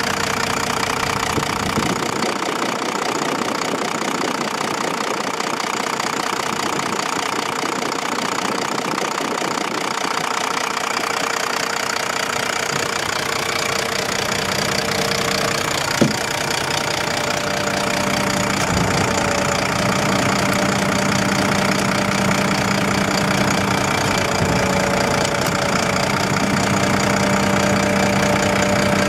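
Diesel engine of a 2003 Kalmar DCD150-12 container forklift idling steadily, heard close at the open engine bay. A single sharp click comes about halfway through.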